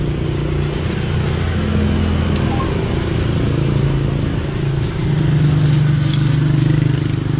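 A motor vehicle's engine running steadily nearby, a low hum whose pitch shifts a little and which grows louder about five seconds in.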